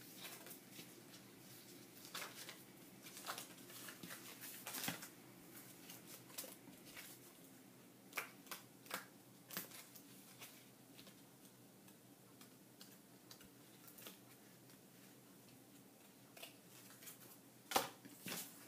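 Faint rustling and light taps of paper and cardstock being handled on a cutting mat, with a few sharp clicks and a louder one near the end, over a faint low hum.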